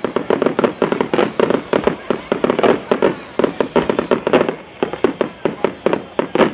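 Fireworks display in a rapid barrage: sharp bangs and crackles several times a second, over a thin high whistle that slides slowly down in pitch.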